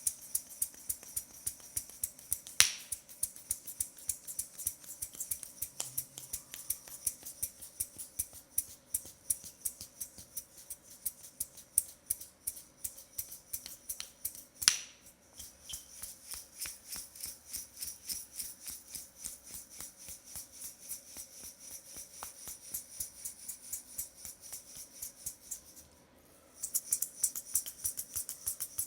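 Rapid, crisp tapping clicks in a fast, steady rhythm of several a second, with two louder snaps, one about three seconds in and one near the middle, and a brief pause a couple of seconds before the end.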